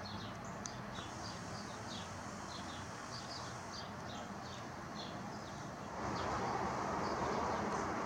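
Small birds chirping, many short high chirps a second, over a steady outdoor rush. About six seconds in, a louder even rushing noise comes in and holds.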